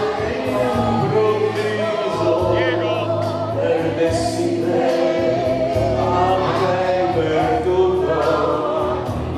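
A man singing an Italian ballad with vibrato into a microphone, over instrumental accompaniment with a steady bass line.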